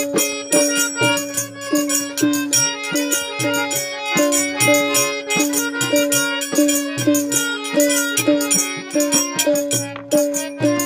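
Instrumental passage of a Bengali folk-style song, with pitched instrument notes over a steady shaker-and-percussion beat.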